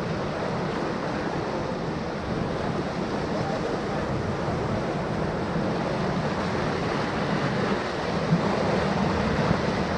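Whitewater rushing steadily around a raft surfing a wave on a rapid river, with no distinct splashes or knocks.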